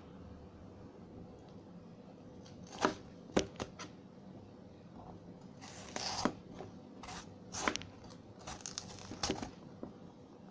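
Kitchen knife slicing bitter gourd (ampalaya) on a wooden cutting board: a string of separate crisp cuts and blade knocks, irregularly spaced.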